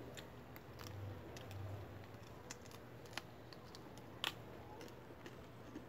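Faint, crisp crunching clicks of a person chewing raw, unripe green papaya and biting into the unpeeled fruit; the sharpest crunch comes about four seconds in, with the bite.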